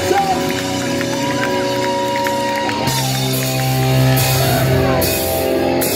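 Punk rock band playing live: electric guitars and bass hold chords over drums, changing chord about halfway through, with cymbal crashes in the second half.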